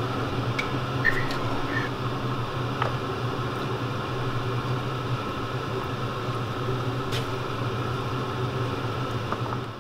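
A steady mechanical hum, like a kitchen fan, with a few light clicks and taps of a spoon as stir-fried vegetables are served from a wok into a plastic container.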